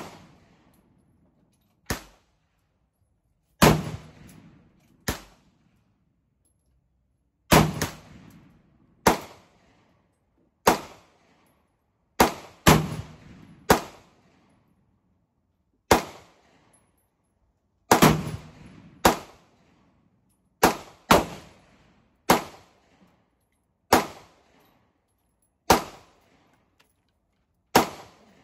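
AR-15 pistol fired semi-automatically: about twenty single shots at an uneven pace, some in quick pairs and others nearly two seconds apart, each a sharp crack with a short ringing tail.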